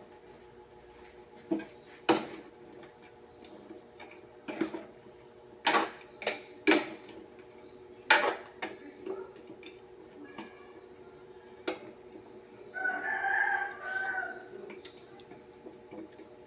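Scattered sharp knocks and clicks of kitchen cookware over a steady low hum. About thirteen seconds in, a rooster crows once for about a second and a half.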